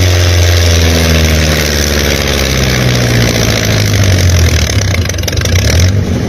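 An engine idling steadily, a low hum whose pitch wavers slightly.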